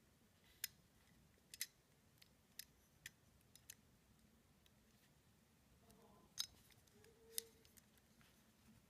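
Light, sharp metallic clicks of small steel parts being worked in a Sig Sauer P226 pistol frame as the sear pivot pin is seated: about ten ticks, most in the first few seconds, with two stronger ones near the end.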